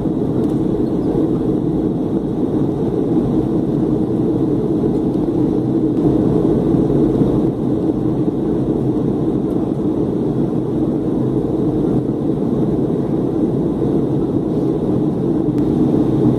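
Steady cabin noise inside a Boeing 737-300 descending on approach to land: an even, deep rushing drone of its CFM56 engines and the airflow over the fuselage, with no distinct events.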